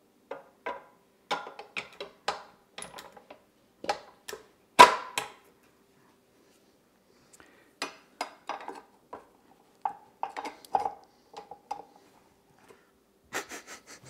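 A glass mixing bowl knocking and clinking against a stand mixer's metal bowl clamp and paddle as it is set in place and twisted to lock. The knocks come irregularly, the loudest about five seconds in, then after a short pause a quicker run of clicks.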